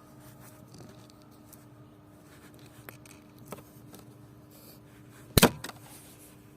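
Light clicking and handling noises of small hard parts, with one sharp, loud click about five and a half seconds in, over a faint steady hum.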